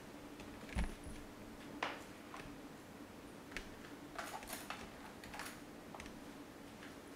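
Scattered soft taps and clicks of hands working during a body massage, with a low thump about a second in and a quick run of clicks around four seconds, over a faint steady hum.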